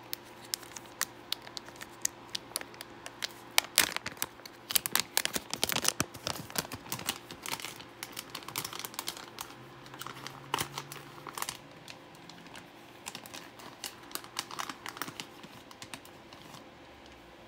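Plastic packaging being handled and opened by hand: a quick, irregular run of clicks, snaps and crinkles, densest about four to seven seconds in and thinning out toward the end.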